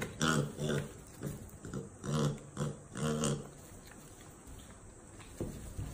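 Miniature piglet grunting in a quick run of short calls as it is grabbed and held, then going quieter after about three and a half seconds.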